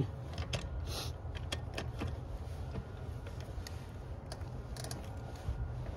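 Scattered light metal clicks and clinks of a torque multiplier and its socket on a wheel's lug nut as the tool is seated and its handle cranked, over a steady low rumble.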